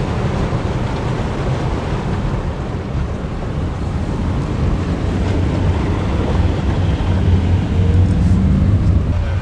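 Car driving along a flooded road, heard from inside the cabin: a steady low rumble of engine and tyres with a hiss of water under the wheels, growing louder about seven seconds in.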